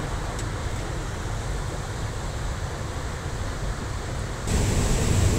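Wind buffeting the microphone outdoors, a low rumbling noise that gets louder about four and a half seconds in.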